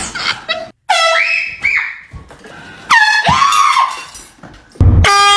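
Air horn blasted three times in short, loud bursts: about a second in, about three seconds in, and near the end. Startled cries rise and fall between the blasts.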